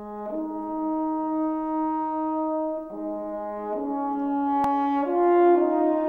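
Slow intro music of held, horn-like chords that change every one to two seconds, with a single sharp click about four and a half seconds in.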